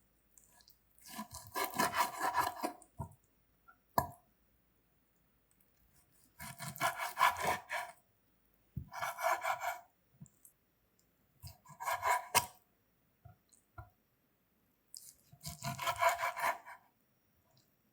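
Rasping back-and-forth strokes, like sawing or filing, in five bursts of one to two seconds each, with a few short clicks in the pauses between them.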